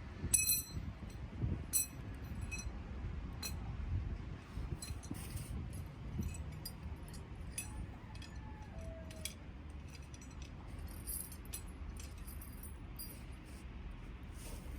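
Softwood fire crackling in a small stainless-steel wood-burning stove, with scattered sharp snaps and a few ringing metallic clinks, the loudest about half a second and two seconds in, over a low steady rumble.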